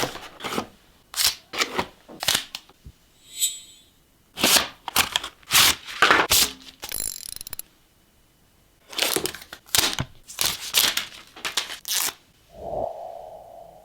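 Phone box and packaging being unboxed by hand: a run of sharp clicks and taps, tearing and crinkling of plastic and paper, and brief hissy rustles. A short humming tone comes near the end.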